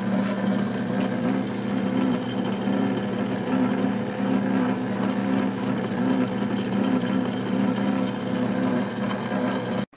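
Metal lathe running steadily, its cutting tool turning down a stack of washers bolted together. A steady machine whir and hum that cuts off abruptly near the end.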